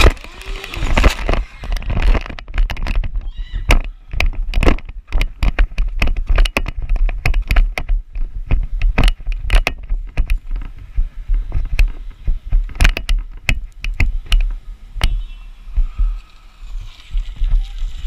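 Irregular knocks, scuffs and thumps close to a helmet camera's microphone as the rider moves about on the pavement after coming off the motorcycle; no engine is running.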